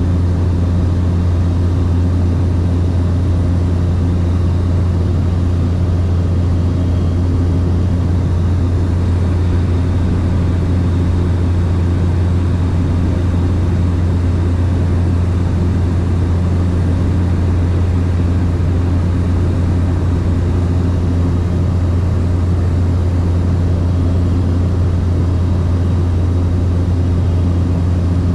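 Light aircraft's engine and propeller droning steadily in cruise, heard from inside the cabin, with a strong low hum and a few steady tones above it.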